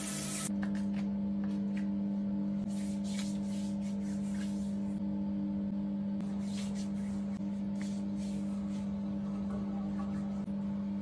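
Steady, held ambient drone with a singing-bowl-like tone, with faint soft rubbing noises over it. Running shower water cuts off about half a second in.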